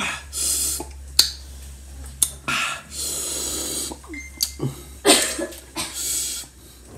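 A man hissing breaths in and out through his mouth while chewing, about five breaths with the longest near the middle, and sharp mouth clicks and smacks between them, a reaction to a sour mouthful.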